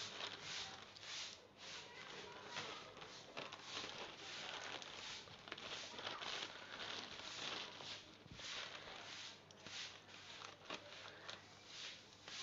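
Plastic courier mailer bag crinkling and rustling in irregular surges as hands handle and tear it open.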